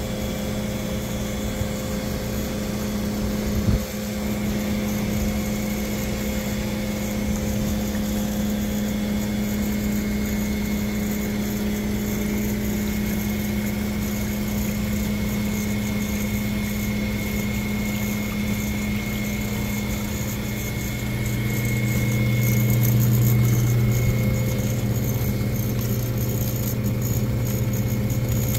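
Small-scale ore-processing plant running steadily: hammer mill, conveyor belt and shaker table together make a continuous mechanical hum. There is a single sharp knock about four seconds in, and the low hum swells louder about three-quarters of the way through.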